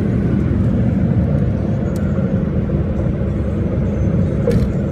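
Steady low rumble of road and wind noise inside a car cruising at highway speed.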